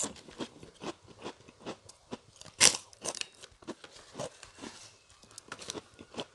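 Crunching and chewing of krupuk crackers with peanut sauce: a string of irregular sharp crunches, the loudest about two and a half seconds in.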